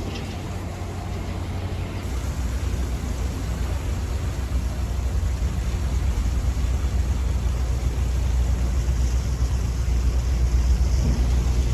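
Hydrogen fuel cell passenger boat under way: a steady low rumble with a rushing of water and wind, slowly getting louder as it gathers speed. There is no combustion-engine note.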